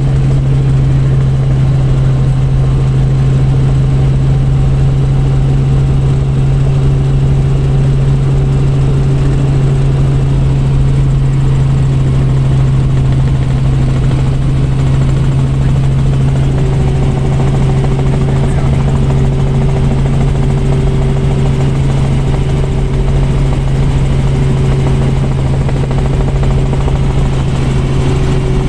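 Helicopter in flight heard from inside its cabin: a loud, steady low drone of engine and rotor.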